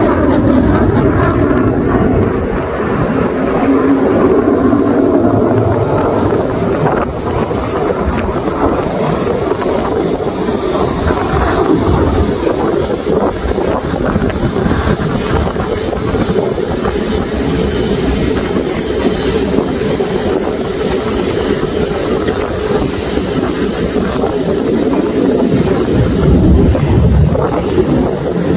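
Lockheed Martin F-35 Lightning II's Pratt & Whitney F135 afterburning turbofan, heard from the ground as the jet flies overhead. It makes a steady, deep jet rumble that slowly swells and eases in loudness.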